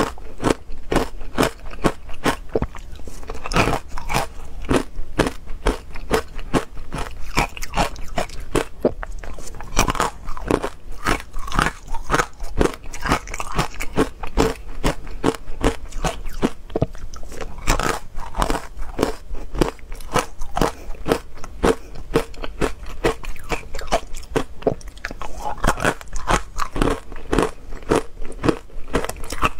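Close-up crunching of hard ice cubes coated in matcha powder being bitten and chewed, a dense run of sharp cracks going on continuously.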